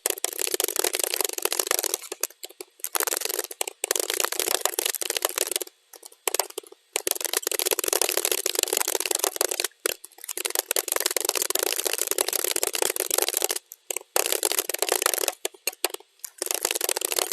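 Rapid typing on a computer keyboard, sped up to double speed: a dense stream of key clicks broken by several short pauses.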